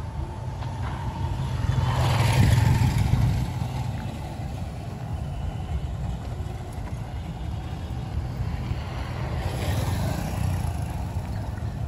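Vehicles passing close by on a dirt road over a steady low rumble: one swells and fades about two seconds in, the loudest moment, and a motorcycle passes about ten seconds in.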